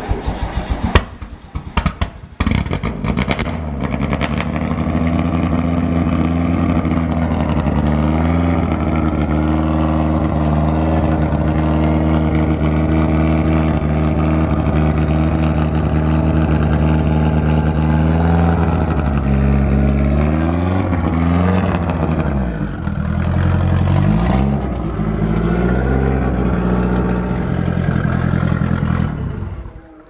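Lancia Delta HF Integrale rally car's turbocharged four-cylinder engine starting: a couple of seconds of cranking, then it catches and idles steadily. Past the middle it is blipped, the revs rising and falling several times, then it settles and is switched off just before the end.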